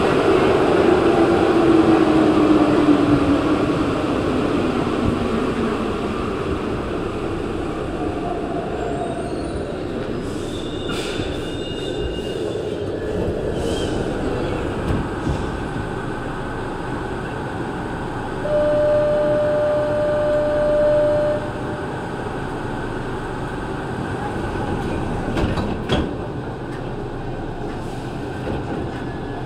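Santiago Metro NS-2004 train running through a tunnel, heard from inside the driver's cab. The motor whine falls in pitch over the first few seconds as the train slows, then settles into steady running noise. A steady tone sounds for about three seconds past the middle, and a single sharp click comes near the end.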